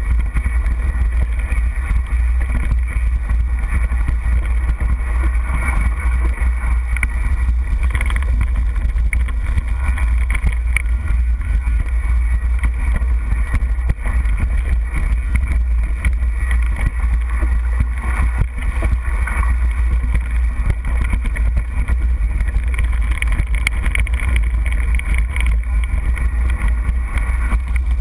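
A mountain bike, a Trek Superfly 29er, clattering and rattling as it rolls over a rocky dirt trail, with frequent small knocks. Over it all is a heavy, steady low rumble of wind buffeting the action camera's microphone.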